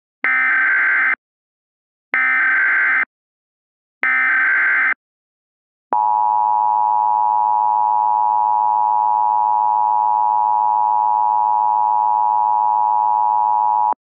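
Emergency Alert System tones: three bursts of about a second each of SAME digital header data, about two seconds apart, then the steady two-tone EAS attention signal (853 and 960 Hz) sounding for about eight seconds. Together they mark the start of a National Emergency Message alert.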